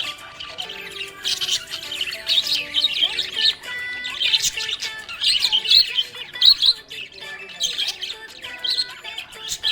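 Budgerigar chirping and warbling in rapid, busy chatter, with quick bursts of high chirps and squawks.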